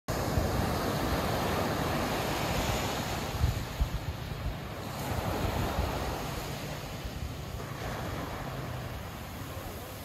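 Small ocean waves breaking and washing up a sandy beach, loudest in the first few seconds and then easing off. Gusts of wind bump against the microphone now and then.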